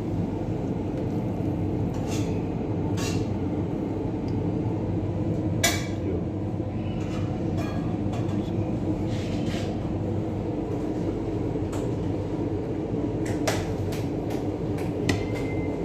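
Steady low hum with a few short, sharp clinks and taps of utensils against a plate as chicken is served.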